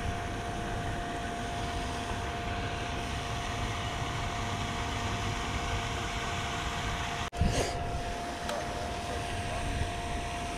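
Wind rushing over a GoPro's microphone, a steady noise with a faint steady two-note hum underneath. About seven seconds in the sound cuts out for an instant, then there is a short jolt.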